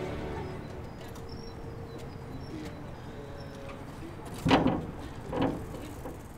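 Large wrought-iron gates shutting, with two heavy knocks about a second apart near the end, the loudest sounds here. Before them music fades out and faint bird chirps are heard.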